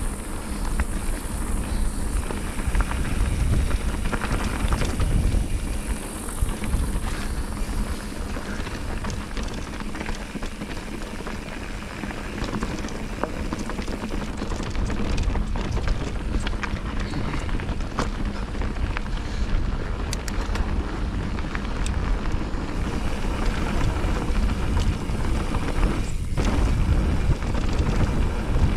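Wind buffeting the microphone during a fast downhill ride, over a steady crunch and rattle of the surface passing underneath.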